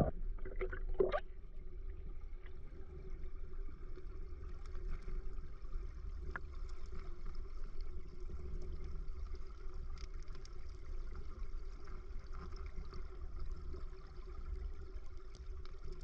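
Mountain stream water running: a steady low rumble with a faint rushing hiss over it, and a few small knocks about a second in.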